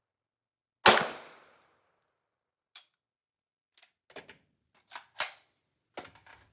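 A pistol shot from an MPA Defender about a second in, a sharp crack with a ringing tail that dies away over about a second. Several quieter short cracks and clicks follow over the next few seconds.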